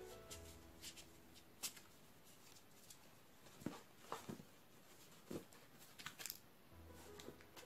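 Faint rustling and clicking of a stack of glossy photo cards being flipped through and set down, a few sharp ticks scattered through it. Soft background music fades out at the start and comes back near the end.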